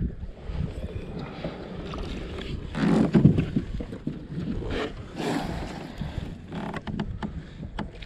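Wind rumbling on the microphone, with knocks and rustling from an angler shifting about in a plastic kayak while fighting a hooked fish. The loudest bump comes about three seconds in, and a few sharp clicks and knocks near the end come as a landing net is brought out.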